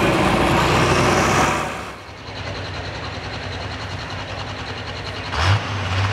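A pulling tractor's engine runs loud and hard, then drops away about two seconds in. Near the end a sudden burst is followed by an engine settling into a steady low drone.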